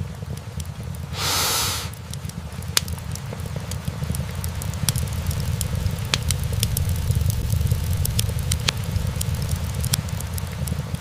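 Wood fire burning in a fireplace: logs crackling and popping in sharp irregular clicks over a steady low rumble. There is a short loud hiss about a second in, and the pops come thicker after a few seconds.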